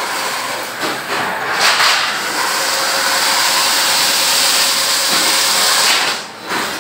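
Chain-link fence weaving machinery running: a loud, steady mechanical hiss and rattle that drops away briefly near the end.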